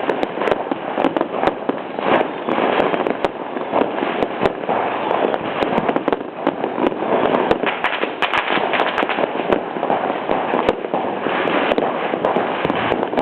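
Fireworks going off in a dense, continuous barrage of sharp cracks and bangs, with no let-up.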